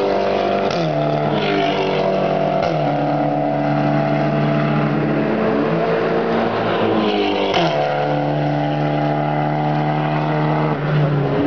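Volkswagen Castrol Cup race cars going by at speed one after another. Their engines run at a steady note that drops in pitch as each car passes, several times over.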